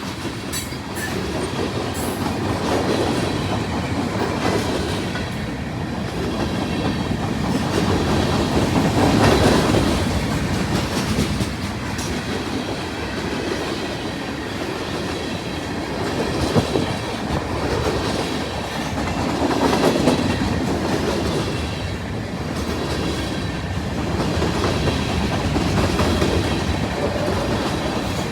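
CSX freight train's cars rolling past, steel wheels clacking and rumbling on the rails. The noise swells and fades every few seconds as the cars go by.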